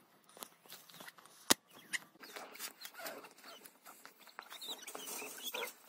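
Quiet outdoor handling noise and steps in snow, with a sharp click about a second and a half in. Faint high whimpers come from the penned young dogs near the end.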